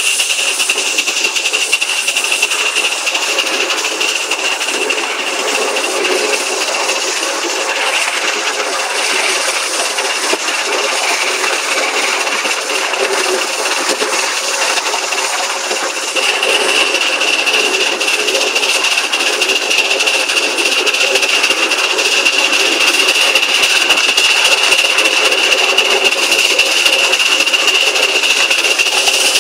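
3½-inch gauge live steam GWR County class model locomotive running, with a hiss of steam and a rattle of wheels on the track. A steady high-pitched tone runs through it and grows stronger about halfway on.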